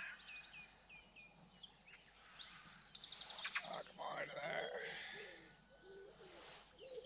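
Several songbirds singing together, with many quick repeated chirps and a fast trill about three seconds in; low cooing notes, like a pigeon's, come in during the second half.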